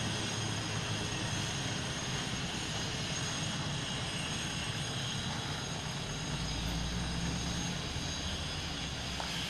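A steady engine drone, with a deeper rumble swelling for a couple of seconds about six seconds in.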